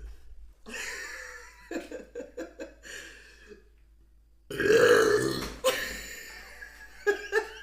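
A woman burping: a quieter, broken stretch of belching in the first few seconds, then after a short pause a loud, deep belch about halfway through that trails off.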